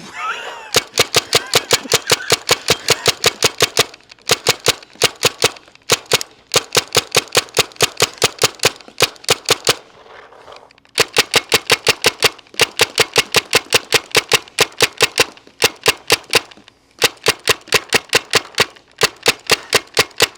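Tippmann TMC mechanical paintball marker firing fast semi-automatic strings of shots, about seven or eight a second, in runs broken by short pauses; the longest pause is about a second, just before the middle.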